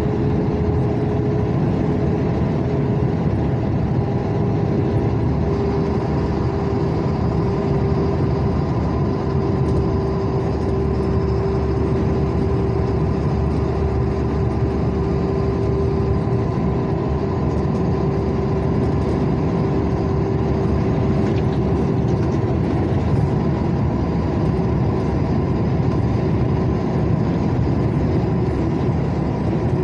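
Steady engine and road noise inside a moving vehicle's cab on the highway, a constant low drone with a steady hum that sinks slightly in pitch.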